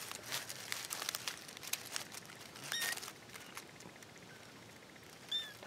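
Faint crackling and rustling in a woodpile, with a short high squeak from a young kitten hidden in it about three seconds in and another just before the end.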